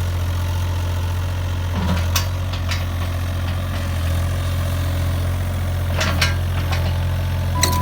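Heavy diesel engine of road-construction machinery running steadily at idle, with a few sharp metallic knocks. A reversing beep begins near the end.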